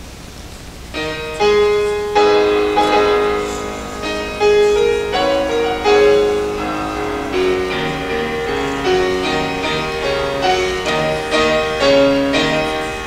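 Grand piano starting to play about a second in: chords and a melodic line of struck notes, each ringing and fading, over a faint steady hall hum.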